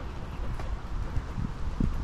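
Footsteps of someone walking, soft irregular low thumps, with wind rumbling on the microphone.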